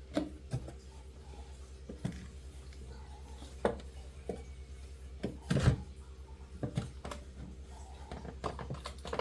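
Scattered light knocks and clicks of plastic refrigerator parts and items being handled and set down while the fridge is cleaned, the loudest knock about halfway through, over a steady low hum.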